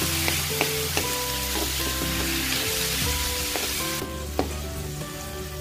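Onion, garlic, ginger, chili and tomato sizzling in hot oil in a wok, stirred with a wooden spatula that knocks against the pan a few times. The sizzle drops off sharply about four seconds in. Background music plays underneath.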